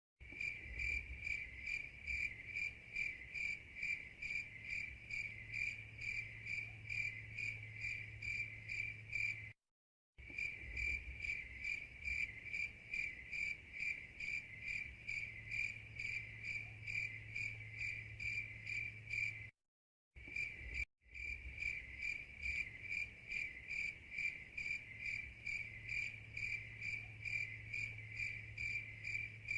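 Crickets chirping steadily, about three even chirps a second on one high pitch. The looped recording drops out to silence for a moment about ten and twenty seconds in.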